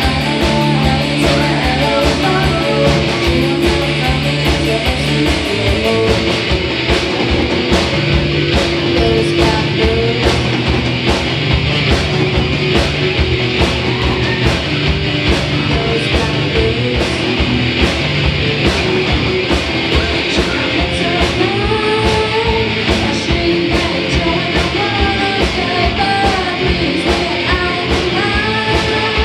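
Live rock band playing: an electric guitar, a bass guitar and a drum kit keeping a steady beat, with a girl singing lead.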